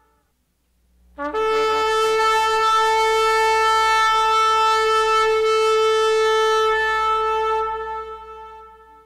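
A shofar sounding one long blast. It opens on a brief lower note, jumps up to a steady held pitch, and fades out near the end.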